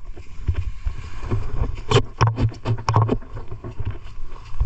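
Footsteps on beach sand, a string of uneven thuds and scuffs over a low rumble.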